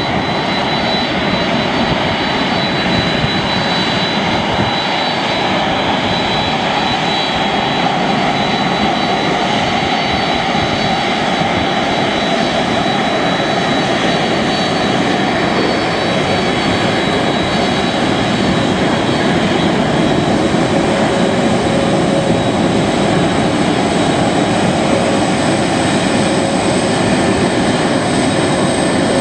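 Boeing 767-300ER's twin jet engines running at taxi power: a loud, steady rush with thin, steady high whines on top. A higher whine comes in during the second half.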